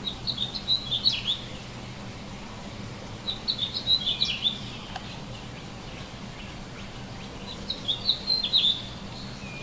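A songbird singing three short bursts of quick chirped notes, one right at the start, one in the middle and one near the end, over a faint steady low hum.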